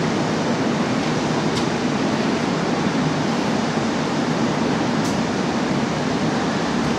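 JR East 701 series electric train standing at the platform with its onboard equipment running: a steady rushing hum. Two short high squeaks come about one and a half and five seconds in.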